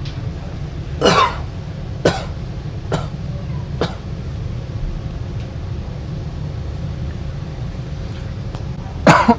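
Staged, exaggerated coughing: one longer cough about a second in, three short coughs about a second apart, then two quick coughs near the end, over the steady low rumble of a moving metro train.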